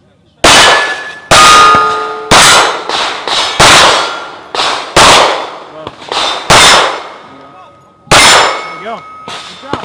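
A string of seven pistol shots about a second apart, fired at steel targets, with the steel plates ringing with a brief metallic tone after several of the shots.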